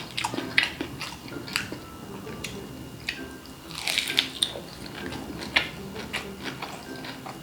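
Close-up biting and chewing of crisp food: irregular sharp crunches and crackles, with a denser run of crunching about four seconds in.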